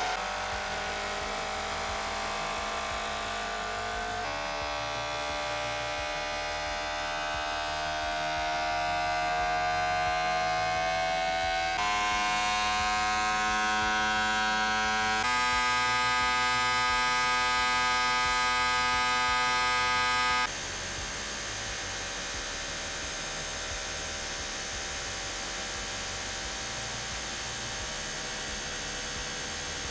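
High-revving engine running with its valve cover off, a whine held at steady speeds and stepped up several times, climbing gradually around ten seconds in and loudest near the end of the run. About twenty seconds in it cuts to another engine running steadily at 8500 RPM, quieter and noisier.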